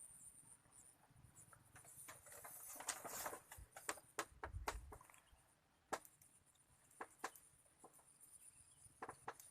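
Faint, steady high-pitched drone of insects, crickets by the sound's continuation from just before, with scattered sharp clicks and a brief rustle about two to three seconds in.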